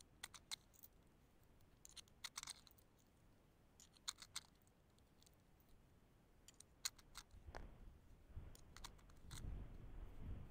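Near silence broken by a few faint, scattered clicks and ticks from handling gear behind the rifle. A low rumble of wind on the microphone rises in the last few seconds.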